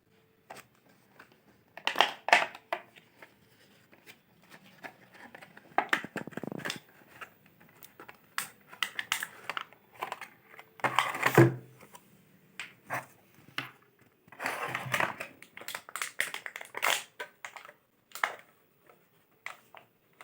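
Speaker's retail packaging being opened and handled by hand: irregular rustles, scrapes and clicks, with louder rustling about eleven and fifteen seconds in.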